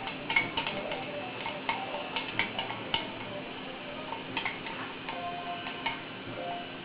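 Light, irregular clicks and taps of a small utensil against a small container as bird hand-feeding formula is stirred with water.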